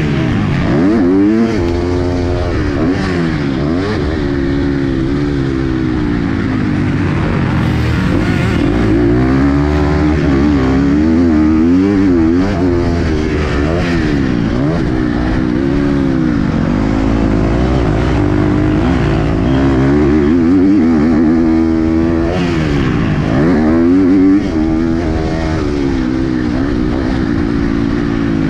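KTM 250 SX-F's single-cylinder four-stroke engine, heard from the rider's own bike, revving hard and repeatedly rising and falling in pitch as the throttle is opened and closed and gears are changed.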